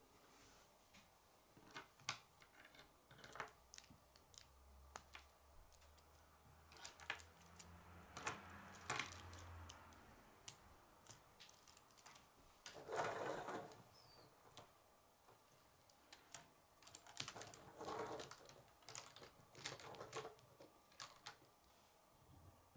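Plastic K'nex rods and connectors being handled and snapped together: irregular sharp clicks throughout, with a longer rattling scrape about 13 seconds in and another around 18 seconds.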